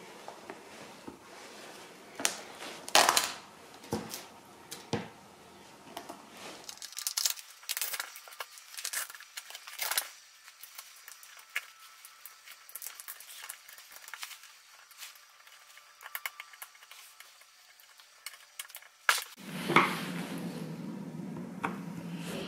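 Small metal parts and tools clinking and tapping on a workbench, in scattered sharp knocks. Near the end a steady noise starts suddenly and keeps going.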